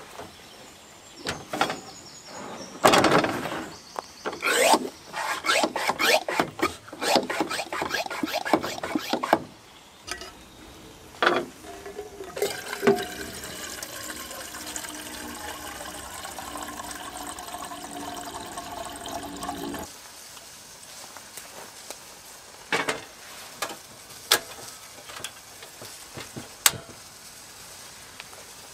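Clicks and knocks of handling at the back of a truck, then water running from the tap of a plastic water container into a small camping kettle for about seven seconds, stopping abruptly. A few sharp clicks near the end.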